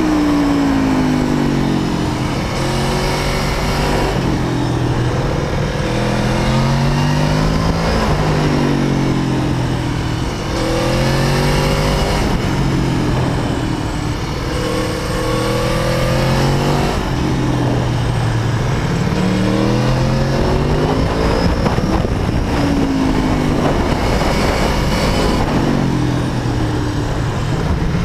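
Aprilia Tuono APRC Factory's V4 engine heard while riding, its pitch climbing and falling again and again as the rider accelerates, shifts and backs off the throttle, over steady wind rush.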